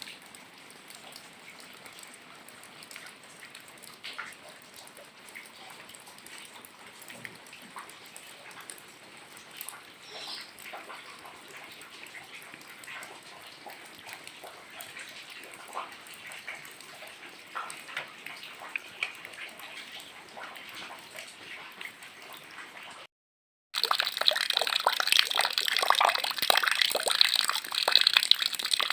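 Rain: light, scattered drops and patter at first. After a brief dropout about 23 seconds in, heavy rain and pouring water come in much louder, a dense hiss full of splashing crackles.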